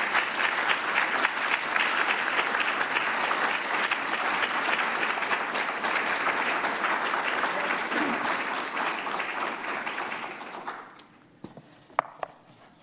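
Audience applauding steadily, the clapping dying away about ten seconds in. A single sharp knock follows near the end.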